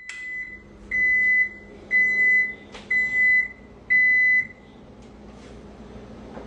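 An electronic beeper giving a high, steady beep about five times, roughly once a second, each beep about half a second long, with a brief click in the middle of the run.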